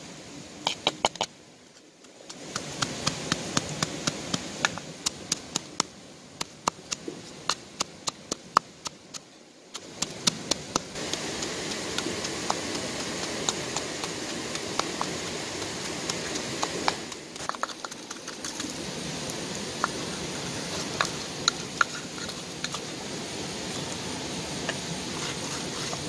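Wooden pestle pounding chilies, garlic and salt in a wooden mortar: sharp knocks about two to three a second for the first ten seconds, then only now and then, over a steady hiss.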